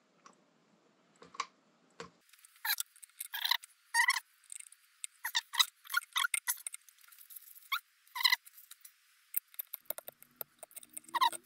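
An irregular string of short squeaks and clicks as bolts and metal parts are handled and fitted by hand into a motorcycle front wheel hub.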